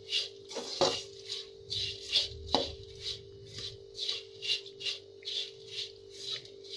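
Metal spatula stirring dry flattened rice (poha) in an aluminium kadhai as it fries: rhythmic rustling swishes about twice a second, with a few sharper scrapes of the spatula against the pan.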